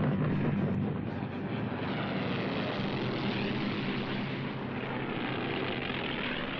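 Piston-engine propeller warplanes droning overhead, the engine note sweeping in pitch as the aircraft pass.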